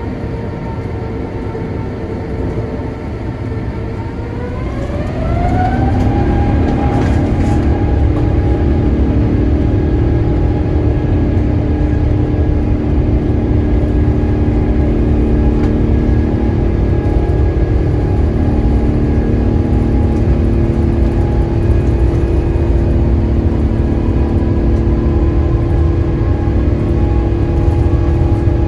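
Airbus A350-900's Rolls-Royce Trent XWB turbofan heard from inside the cabin: a steady whine over a low rumble. About four to six seconds in, the whine glides up in pitch and grows a little louder as the engine spools up, then holds steady.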